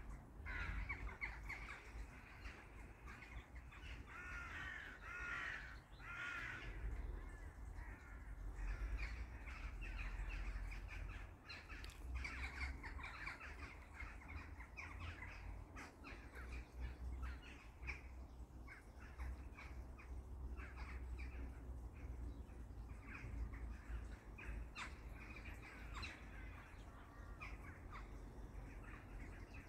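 Birds calling, with calls packed close together in the first few seconds and then scattered short calls, over a low uneven rumble.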